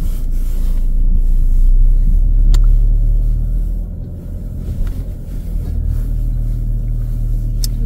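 Low, steady rumble of a Hyundai Palisade on the move, strongest in the first couple of seconds and easing off about four seconds in, with a couple of faint clicks.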